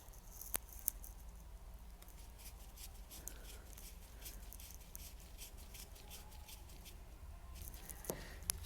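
Faint small clicks and scrapes of a key fob's plastic casing being handled and fitted back together, with two sharper clicks about half a second and a second in and a cluster of clicks near the end.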